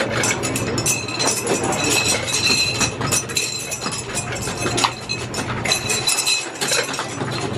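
Rings clinking and clattering on rows of green glass bottles at a ring toss game, many sharp hits in quick succession, over a steady low hum.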